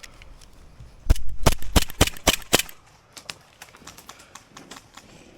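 Airsoft gun firing a quick string of about eight sharp shots over roughly a second and a half, followed by fainter scattered clicks.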